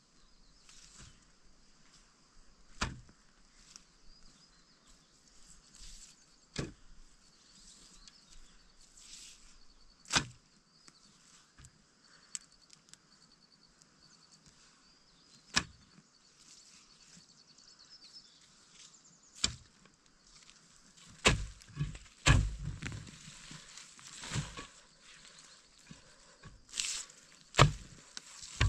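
Chopping with a blade on wood: sharp single knocks a few seconds apart, then several chops in quicker succession near the end.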